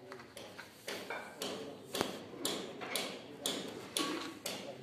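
Footsteps in rubber flip-flops on a concrete floor, an even rhythm of about two slaps a second.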